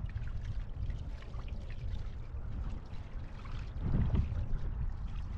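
Water rushing and trickling off a wingfoil board and foil, with wind buffeting the microphone in a steady low rumble; the sound swells briefly about four seconds in.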